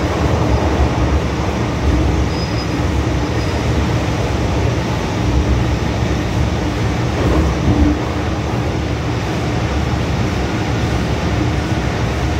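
Interior running noise of an MTR Tsuen Wan line M-Train electric multiple unit in motion: a steady rumble of wheels on rail, with a faint steady hum.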